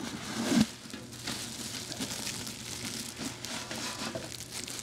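Plastic oven bag crinkling and rustling as it is gathered up and lifted with boiled seafood and sauce inside, with a louder rustle about half a second in.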